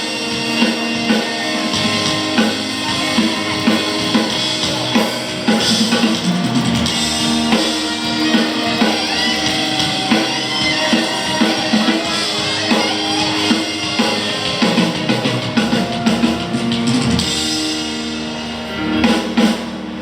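A live rock band playing during a sound check, led by a drum kit with a steady beat and electric guitar, heard loud through the venue's PA. The playing drops off about seventeen seconds in, with a few loud hits near the end.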